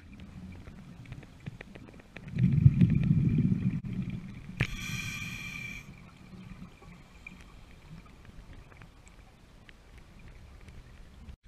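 Underwater scuba breathing: a low bubbling rumble of exhaled air from about two seconds in, then a click and a short buzzing regulator inhale. Faint ticks and clicks run through the rest.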